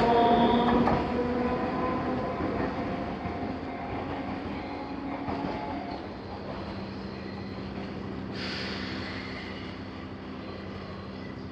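Enoshima Electric Railway train running over the level crossing and away, its wheel and running noise fading over the first several seconds, with a faint wheel squeal early on. A short hiss comes about eight seconds in.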